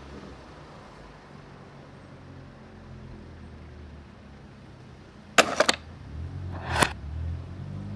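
A low steady hum, broken about five and a half seconds in by a quick cluster of sharp clicks, then a short rising swell that ends in another sharp click.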